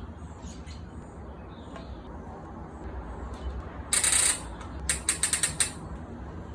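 Ratchet wrench working, presumably on the battery bolts: a short loud rasp about four seconds in, then a quick run of about eight clicks.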